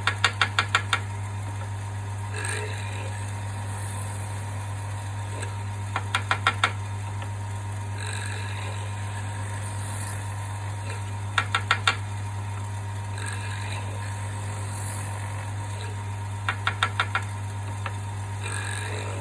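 Wood lathe running with a steady low hum while the drill bit in its chuck plunge-cuts into a wooden block to clear out a tang socket. Four times, a quick run of five or six sharp clicks.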